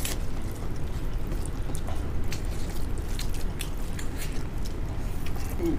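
Two people eating rice and duck meat with their hands: chewing and scattered small clicks of fingers working food on paper plates, over a steady low hum.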